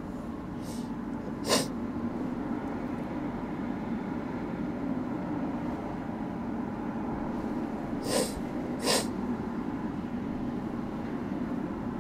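Christ rollover car wash gantry running with a steady low machine hum. Three short, sharp hisses cut through it, one about a second and a half in and two close together near the end.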